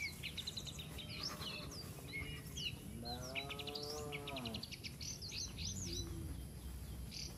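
Small birds chirping and twittering throughout, with one drawn-out cow moo about three seconds in, its pitch rising a little and then falling.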